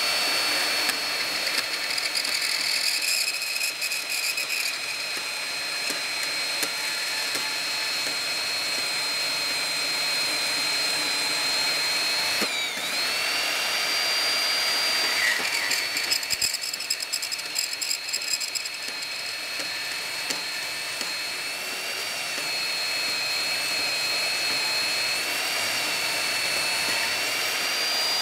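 Portable band saw (Porta-Band) running with a steady high motor whine while its blade cuts hinge-knuckle slots in steel flat bar; a rasping cutting noise comes and goes. The whine dips briefly about twelve seconds in, then picks back up.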